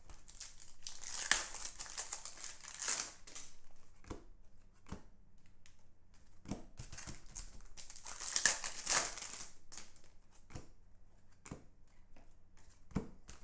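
Foil trading-card pack wrappers crinkling and being torn open by hand, with cards being handled and shuffled. The crinkling comes in bursts about a second in and again about eight seconds in, with scattered small clicks between.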